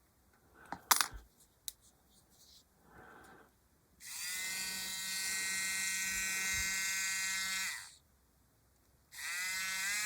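Small electric Dspiae hobby drill: a few clicks from handling and the button about a second in, then the motor runs with a steady whine for about three and a half seconds, spins down and is switched on again near the end while its power and speed button is being tried.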